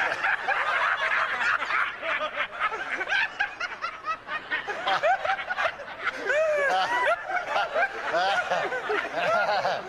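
A congregation laughing, many voices at once, overlapping chuckles and peals of laughter that rise and fall.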